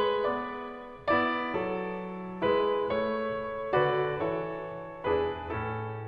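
Background music of slow piano chords, each struck and left to ring out. A new chord comes a little over a second apart, four times.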